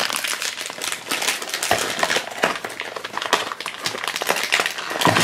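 Cardboard blind-box packaging being opened and handled: a dense, irregular run of small clicks, crackles and rustles.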